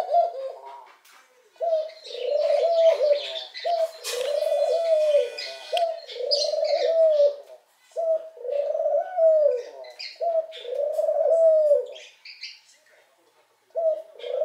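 Ringneck dove cooing over and over at its own reflection in a glass cabinet door, about nine low coos of roughly a second each, with a short pause near the end. Higher-pitched chirps from other small pet birds sound in the background.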